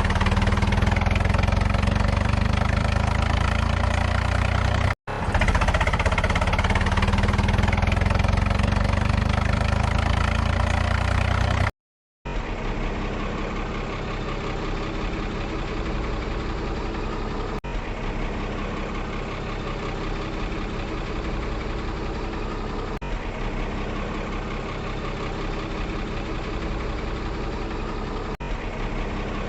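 Engine running steadily, louder and deeper in the first part, with abrupt cuts about 5 and 12 seconds in; after the second cut it carries on steadier and somewhat quieter.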